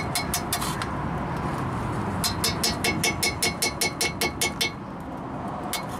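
A flat metal hand tool scraping rust off the steel steering knuckle at the ABS wheel-speed sensor mount, cleaning it to bare metal: a few strokes at the start, then a quick regular run of about five strokes a second through the middle, over a steady low background noise.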